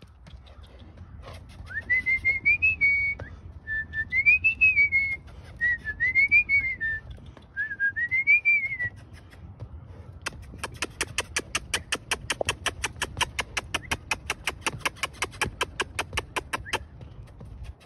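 A person whistling four short phrases, each rising and then falling in pitch. About ten seconds in, this gives way to a fast, even run of sharp clicks, about six a second, that lasts several seconds and stops shortly before the end.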